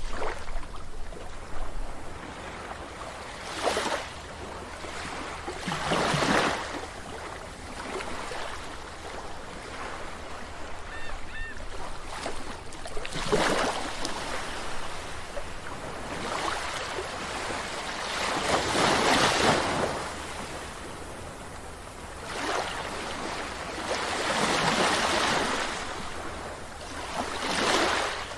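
Sea waves breaking on a beach: a constant wash of surf with a louder surge every few seconds, each building and falling away.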